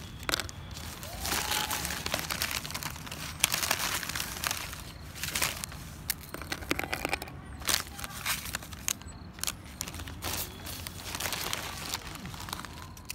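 Round biscuits being snapped in half by hand, a run of crisp cracks and crinkling, with the pieces dropping onto a board.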